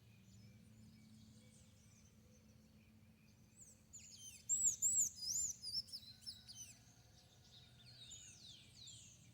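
Birds singing and chirping, with a louder run of quickly repeated arching high notes from about four to six and a half seconds in. A faint low steady hum lies underneath.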